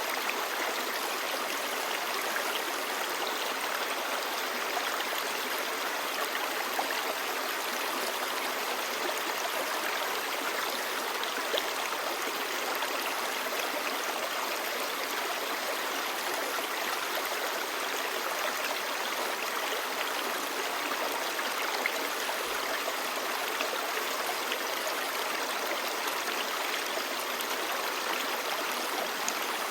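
Clear stream babbling: a steady, even rush of flowing water.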